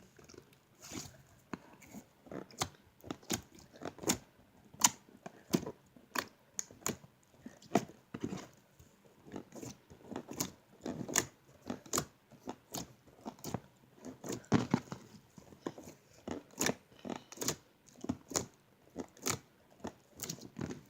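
Slime being squeezed and pressed by hand, giving irregular wet clicks and pops, a few a second.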